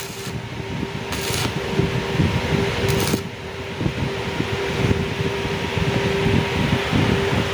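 MIG welder tack-welding steel brackets onto a chassis frame: the arc crackles in short runs, over a steady hum, with a few sharp cracks near the start and again about a second and three seconds in.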